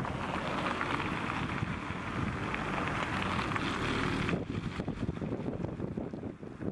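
Wind rushing over the microphone, a steady hiss that cuts off suddenly about four seconds in.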